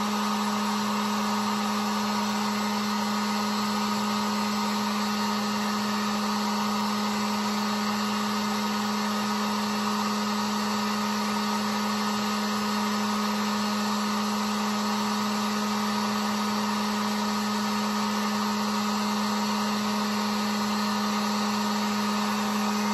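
Harbor Freight 1500-watt heat gun running steadily, loud: fan motor hum over rushing hot air, used to heat a powder-painted jig head.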